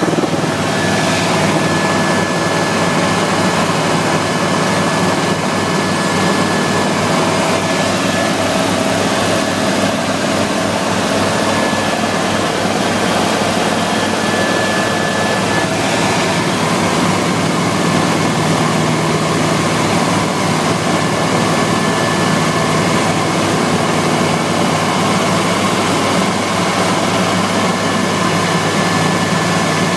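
Helicopter in steady cruise heard from inside the cabin: the turbine engine and rotor running loud and even, with a fast rotor beat underneath and a thin steady whine above.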